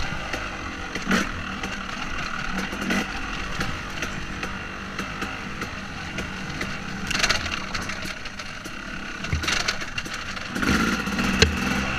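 A 2014 KTM 250 SX two-stroke motocross engine running while being ridden, its pitch rising and falling with the throttle. A few short knocks and rushes of noise cut through it, the sharpest near the end.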